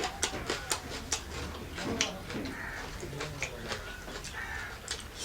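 Close-up eating sounds: irregular wet clicks and smacks of someone chewing a mouthful of chicken and rice, several a second.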